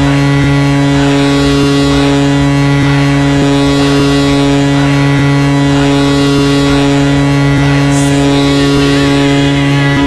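Kahlenberg KM-135 air horn sounding one long, steady goal-horn blast: a deep, loud tone with a rich stack of overtones that holds without a break.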